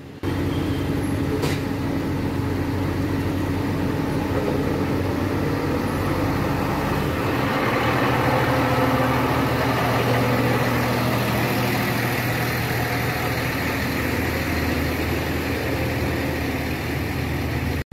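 Large wheel loader's diesel engine running close by, a steady hum that swells a little about halfway through.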